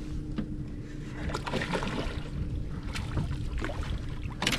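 Ambient noise aboard a small fishing boat on a river: a steady rumble of wind and water with a faint steady hum that fades out near the end, and a few short knocks and splashes.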